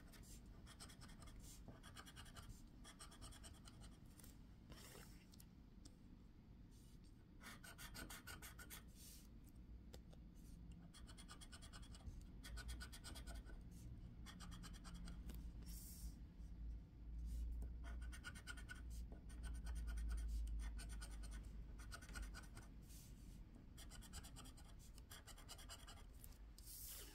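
Faint scratching of a metal-tipped scratcher on a scratch-off lottery ticket, in clusters of short quick strokes as the coating is scraped off. A low rumble rises for a few seconds about two-thirds of the way through.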